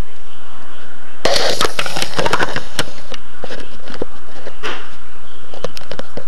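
Camera handling noise: a dense burst of rustling and knocking about a second in while the camera is moved and set down, then scattered sharp clicks.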